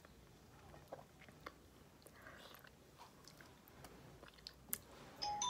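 Faint chewing of a person eating by hand, with a few small soft clicks. Background music comes in near the end.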